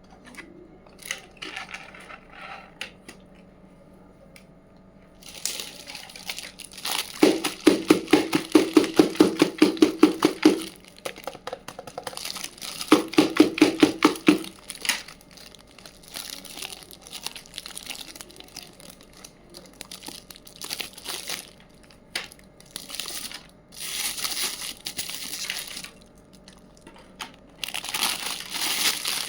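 Plastic packaging being handled and crinkled while toy pieces are unwrapped. Twice, about a third of the way in and again a few seconds later, come loud bouts of rapid ripping, like tape or wrapping being torn away.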